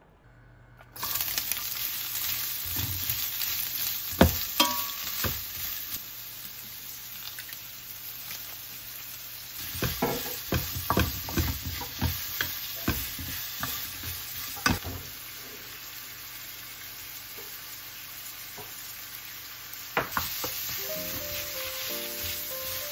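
Julienned carrots stir-frying in a stainless steel frying pan: a steady sizzle with the scrape and tap of a wooden spatula against the pan, busiest in the middle. Soft piano music comes in near the end.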